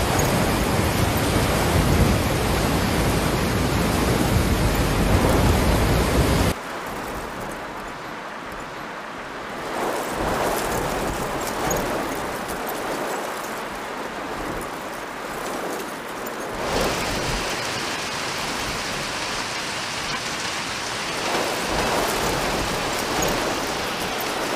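Muddy river in flood rushing past, a loud, steady rush of water. About six and a half seconds in it cuts off abruptly to a quieter rush of water and rain, which turns brighter and hissier later on as heavy rain falls.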